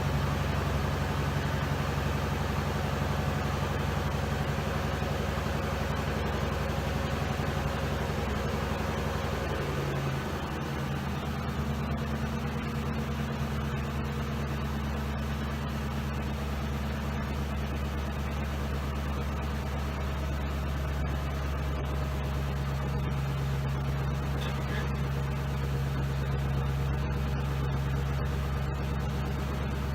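2007 Ford Crown Victoria's 4.6-litre V8 idling steadily during a test run after misfire repair work. Its note shifts slightly and drops a little in level about ten seconds in.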